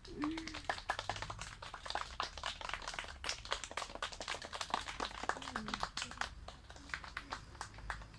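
A group of children clapping their hands, many uneven, unsynchronised claps. A child's voice is heard briefly a couple of times.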